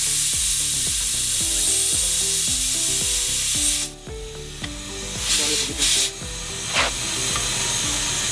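Compressed air hissing into a car tire being inflated on a wheel, with air escaping past the bead before it seats. The hiss cuts off about four seconds in, then comes back in three short blasts before running steadily again.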